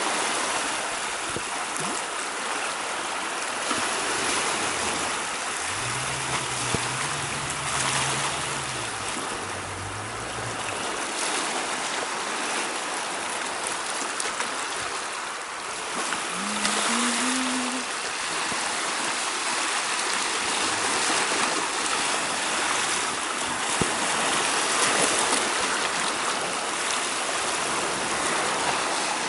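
Sea water washing and splashing over shoreline rocks, a steady rush of surf. A low hum comes in under it for a few seconds about six seconds in.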